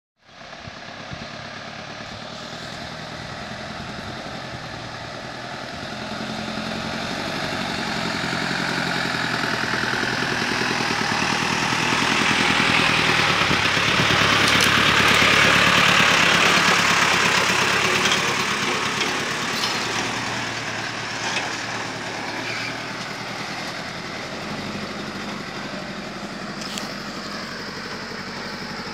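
A loaded mini dump truck's engine running as it labours along a rough dirt track, growing louder as the truck comes up, loudest as it passes close by about halfway through, then fading as it pulls away. A few sharp clicks and rattles come in the second half.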